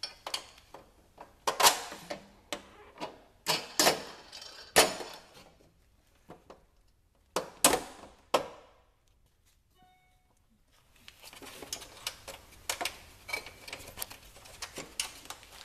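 Running board knocking and clacking against an Arctic Cat snowmobile's tunnel as it is worked into position, a sharp knock every second or so. After a short quiet spell, a run of quicker, lighter clicks and rattles follows near the end.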